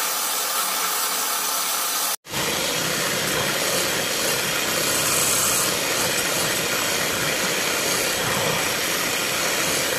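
Electric hand mixer running steadily at speed, its two wire beaters whisking eggs and sugar into a frothy sponge-cake batter. The sound drops out for an instant about two seconds in, then carries on unchanged.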